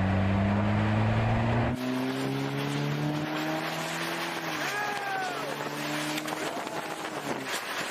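Car engine accelerating through the gears: its pitch climbs slowly, drops about four and a half seconds in as it shifts, then climbs again, over rough road noise.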